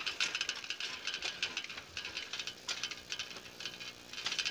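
Old black roadster bicycle ridden along a paved road, its chain and frame giving a run of irregular light clicks and rattles.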